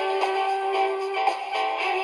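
Music from a 45 rpm single playing on a 1969 Answer Pretty battery micro record player, heard through its small 1-watt speaker: thin and tinny, with no bass.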